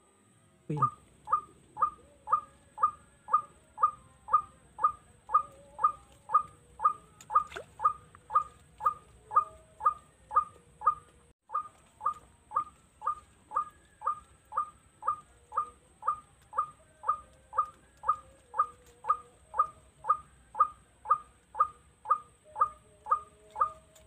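White-breasted waterhen (ruak-ruak) call: a short, falling 'kwak' note repeated very evenly about twice a second.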